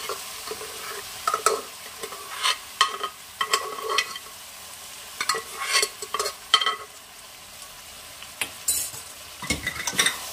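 Boiled chana dal being scraped out of a pot with a spoon and dropped into a metal kadai of fried, spiced vegetables. Irregular scrapes and clinks of utensils on metal, thicker in the first few seconds and again near the end, over a faint steady sizzle from the pan.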